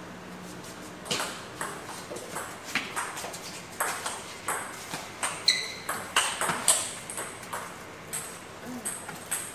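Table tennis rally: the ball ticking sharply off the rackets and bouncing on the table in a quick, irregular run of clicks, beginning about a second in.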